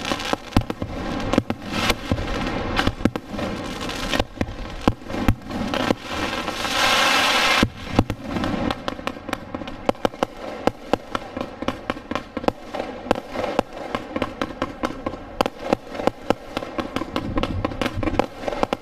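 Fireworks display: a rapid, unbroken run of bangs from firework bursts, with a steady hiss lasting about a second around seven seconds in.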